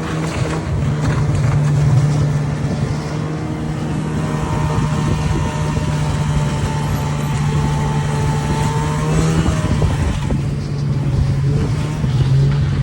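A vehicle engine running steadily under load. Its note dips about ten seconds in and picks up again near the end.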